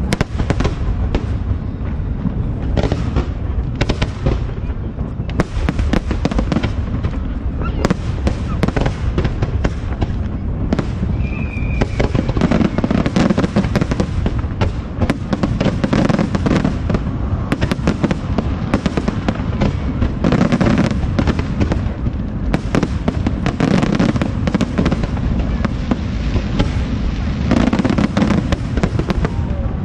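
Aerial fireworks display going off in a dense, continuous barrage: rapid sharp bursts and crackles over deep booms, with hardly a pause.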